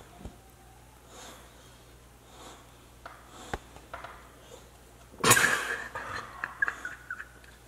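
Blue-and-gold macaw making soft raspy sounds and a few sharp clicks, then a loud harsh squawk about five seconds in, which breaks into short rasps.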